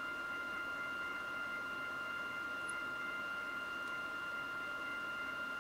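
A steady high-pitched electrical whine of several held tones over a soft, even hiss, with nothing else in it: background noise in the recording.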